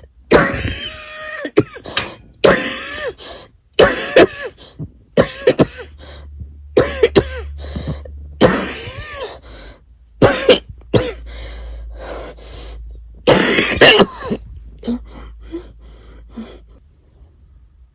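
A person in a repeated aspiration coughing fit: food, liquid and stomach acid coming up and setting off the cough reflex, made worse by a chest infection. Loud coughs come about every second, some with a strained, pitched sound in them, and grow smaller and trail off near the end.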